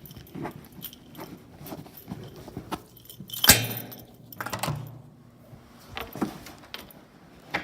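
Small hard objects being handled: scattered clicks and light rattles, with one sharp knock about three and a half seconds in.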